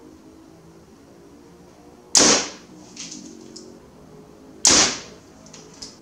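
Two compound bow shots about two and a half seconds apart. Each is a sharp crack of the released string and the arrow striking a close-range target bale, with fainter clicks between the shots.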